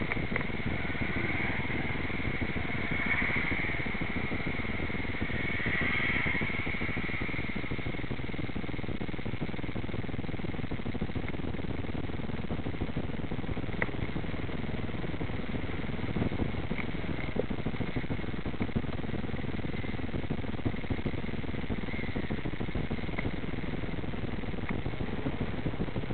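Steady town-traffic rumble of engines and road noise picked up by a bike-mounted camera, with a faint whine swelling twice in the first few seconds and a few light clicks later on.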